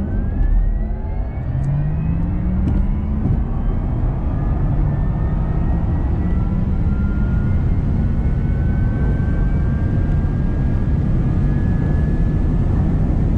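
Porsche Taycan Turbo S's electric motors whining under full acceleration from about 55 to 250 km/h, heard from inside the cabin. The whine climbs slowly in pitch over a loud, steady low rumble of road and wind noise.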